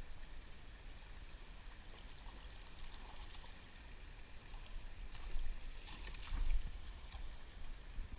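Water sloshing and splashing over a low rumble, with a few louder splashes about five to seven seconds in.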